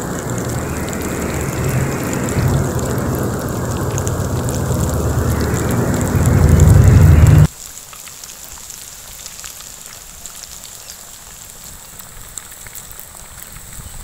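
Battered chicken pieces deep-frying in hot oil in an iron kadai, a loud, steady sizzle. About halfway through it cuts off abruptly to a much quieter sizzle with faint crackles.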